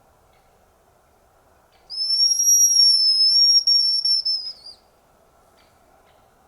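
Hazel grouse call (a hunter's decoy whistle) blown once: a long, thin, high whistle of nearly three seconds that dips slightly in the middle and wavers at the end.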